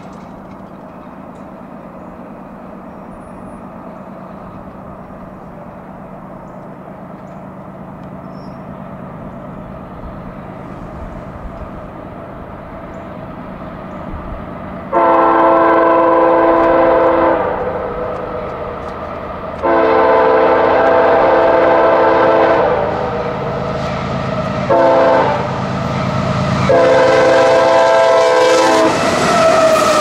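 CSX freight train's diesel locomotive approaching, its low engine rumble slowly growing louder, then the locomotive's air horn sounding a chord of several tones in two long blasts, a short one and a long one: the standard signal for a grade crossing. Near the end the lead locomotive passes the crossing and the horn's pitch drops.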